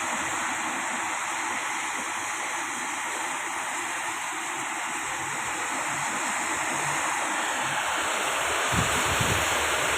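Steady hiss of heavy rain falling. Near the end, wind starts buffeting the microphone in low, gusty rumbles.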